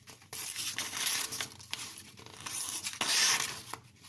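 A knife blade, the Ganzo G704's slightly used 440C edge, slicing through paper in about three passes, the paper tearing and rasping. The paper test of an edge that has some bite but nothing spectacular.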